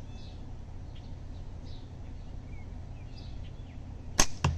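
Slingshot shot with an 11 mm steel ball: a sharp snap of the released bands about four seconds in, then a duller hit a fraction of a second later. Birds chirp faintly over a steady low background noise before it.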